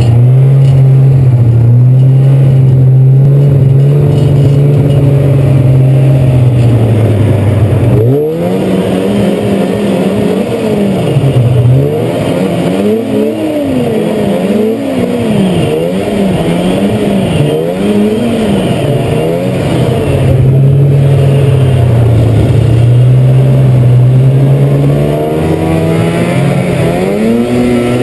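Snowmobile engine heard from the rider's seat, running at a steady pitch, then climbing and swinging rapidly up and down over and over as the throttle is worked through turns. It settles again and climbs once more near the end.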